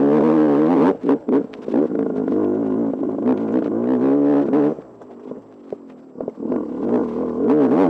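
Sherco enduro motorcycle engine revving up and down over a rough dirt trail, with clattering knocks from the bike. Past the middle it eases off for a second or two, then picks up again near the end.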